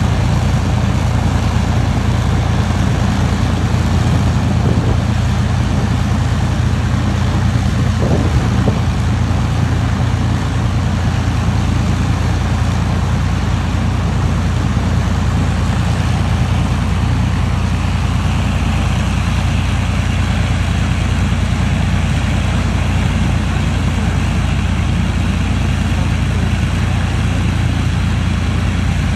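A single Rolls-Royce Merlin V12 engine of an Avro Lancaster bomber running steadily at low power on a ground run after maintenance, a deep, even drone with no change in speed.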